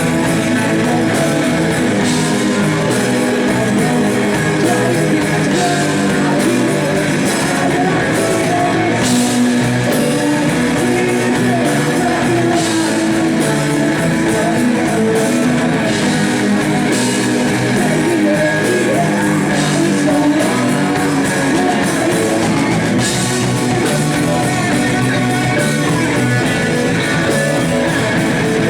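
Live blues-rock band playing: electric guitar, bass and drum kit, with singing.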